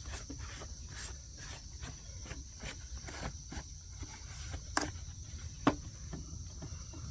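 Steady high-pitched insect chorus, cricket-like chirring, with scattered light clicks and taps and two sharper clicks about five and six seconds in.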